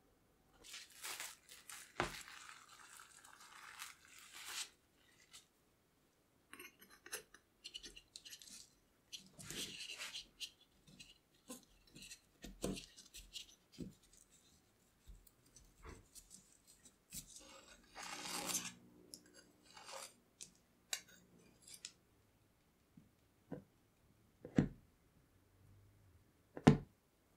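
Close-up sounds of handling tart dough: rustling and rubbing of plastic wrap and dough as rounds are cut with a stainless steel ring cutter and lifted, then soft pressing as the dough is fitted into a fluted metal tart tin. Near the end, sharp taps as a fork pricks the dough base against the tin.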